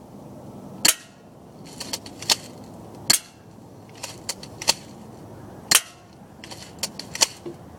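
Crosman Stinger S32P airsoft gun firing: three sharp shots about two and a half seconds apart, with lighter clicks and taps between them.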